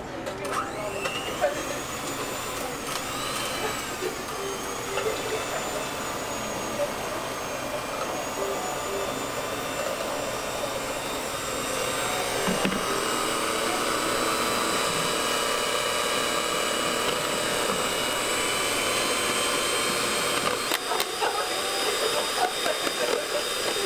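Electric hand mixer whipping egg whites into meringue in a plastic bowl: a steady motor whine that rises in pitch over the first few seconds and gets louder about halfway through.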